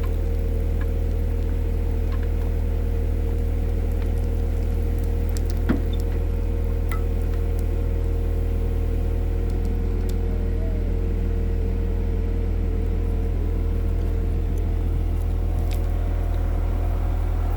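Komatsu PC120-6 excavator's diesel engine running steadily, with one brief knock about six seconds in.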